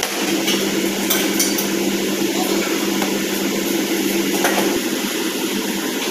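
Meat cleaver chopping raw chicken on a plastic cutting board: a few sharp knocks, about a second in and again past four seconds, over a steady background hum.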